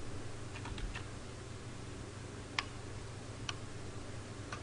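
A few isolated, sharp clicks from computer controls being worked at a desk, spaced about a second apart, over a faint steady low hum.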